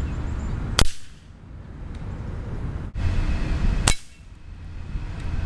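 Two shots from a Gamo Big Cat 1200 break-barrel spring-piston air rifle, about three seconds apart, each a single sharp crack. The pellets strike the screen of an old CRT television.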